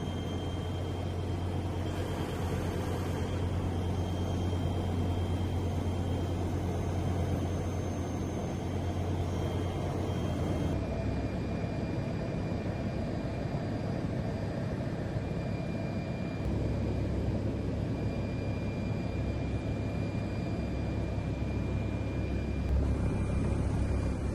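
Steady low drone of an aircraft engine heard from on board, with the tone shifting abruptly about 11 seconds in.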